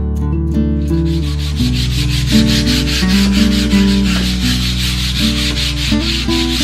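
Hand sanding with a folded sheet of sandpaper on a white painted wooden board: quick back-and-forth rubbing strokes that begin about a second in.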